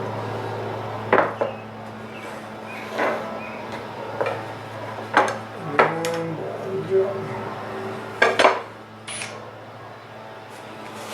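Aluminium flat-bar strips clinking and clattering against metal as they are handled: about ten sharp metallic knocks at irregular intervals, over a steady low hum.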